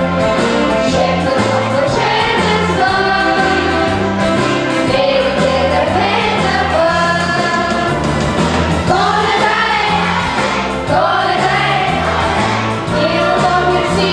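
Children's choir singing together over an instrumental accompaniment, with a low part that changes every second or so.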